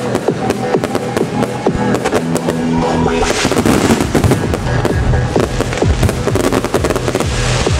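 Trance music over loudspeakers with firework shells bursting and crackling, the bangs and crackle thickening a little over three seconds in as a volley of gold star shells breaks.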